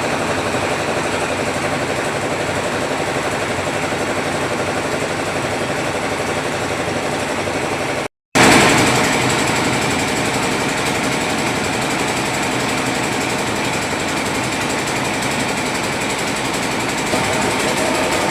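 Automatic rice milling machine running steadily as it mills paddy into rice, a loud continuous mechanical noise. It cuts out briefly about eight seconds in and resumes slightly louder.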